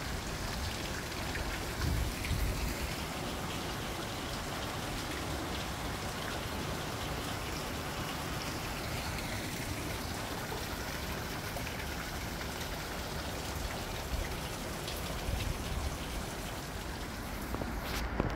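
Steady splashing and hiss of water, even throughout, with a couple of low thumps about two seconds in.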